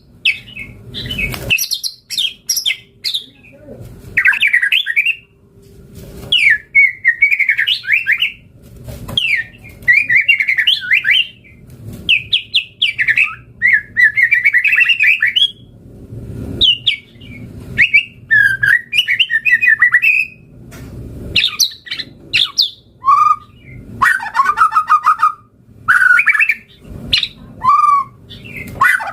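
White-rumped shama (murai batu) singing vigorously: phrases of quick, varied whistled and chattering notes, each lasting a second or two, with short pauses between them.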